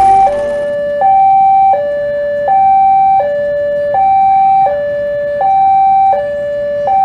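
Railway level-crossing warning alarm sounding a steady two-tone signal, switching back and forth between a higher and a lower tone about every 0.7 s: the crossing is warning of an approaching or departing train.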